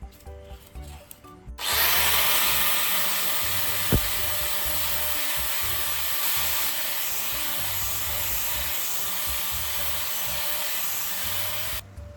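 A power tool working metal runs steadily for about ten seconds, starting abruptly a second or two in and cutting off just before the end. There is a single sharp knock about four seconds in.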